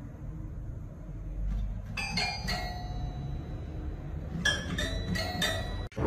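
Toy piano keys pressed by a cat's paw: two short runs of bell-like plinking notes, about four notes a couple of seconds in and about five more from four and a half seconds in.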